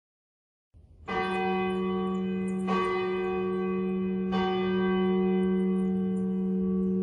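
A bell struck three times, about a second and a half apart, starting about a second in, each strike ringing on in a long, steady, many-toned hum.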